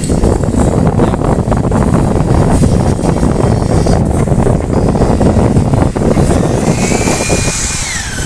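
Power tool running hard on wood, a loud rough rumble, with its motor whine falling in pitch as it winds down near the end.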